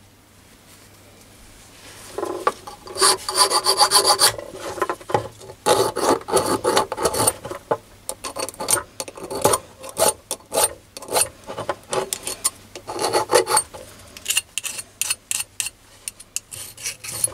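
A small flat hand file scraping along the edges of a machined brass part in short, irregular strokes, starting about two seconds in. The file is deburring the part, taking its sharp edges off.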